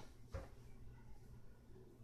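Near silence: room tone with a faint low hum and one soft click about a third of a second in.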